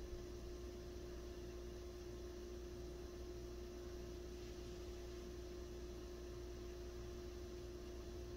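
Steady low hum with a constant mid-pitched tone over a faint even hiss. No bird calls or pecking taps stand out.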